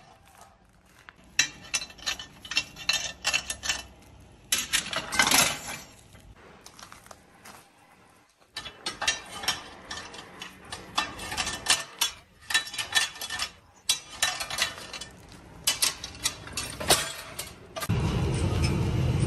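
Handfuls of dry puffed corn from a popcorn cannon rattling and clinking as they are scooped and let fall, in irregular crisp clicks with a short pause about eight seconds in. Near the end a steady low rumble takes over.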